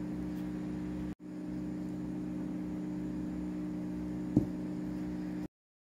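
A steady hum at a few fixed pitches. It drops out briefly about a second in, and there is a single click at about four and a half seconds. The sound then cuts off to silence near the end.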